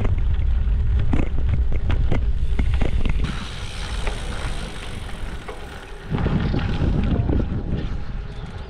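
Gravel bike riding over a rough, bumpy off-road track: wind buffeting on the microphone with a heavy tyre rumble and many sharp rattling knocks. The rumble eases about three seconds in and comes back strongly about six seconds in.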